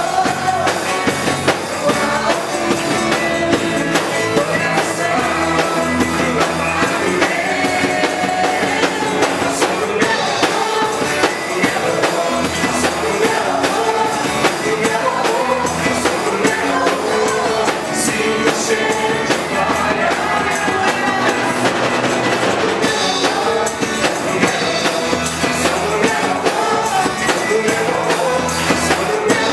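Music with singing: a praise song (louvor) sung over a band with drums and guitar, playing steadily throughout.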